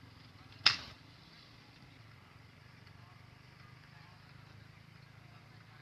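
A single air gun shot, one sharp crack less than a second in, over a faint steady low hum.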